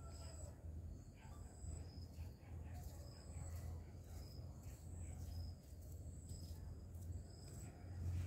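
Insects chirping in short, high notes that repeat about once a second, over a low steady hum.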